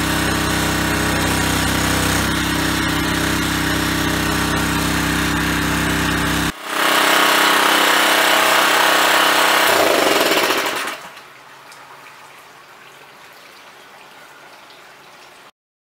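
Small gas engine of a 1-inch centrifugal water transfer pump running steadily while pumping water. About six seconds in, a cut brings a louder rushing noise that dies away with a falling sound about eleven seconds in, leaving a faint hiss.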